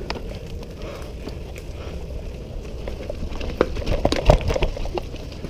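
Mountain bike rolling down a dirt forest trail: tyres crackling over dry leaves and twigs, with a low rumble. A quick run of knocks and rattles from the bike comes about three and a half seconds in, the loudest near four and a half seconds, as it rides over rough, rooty ground.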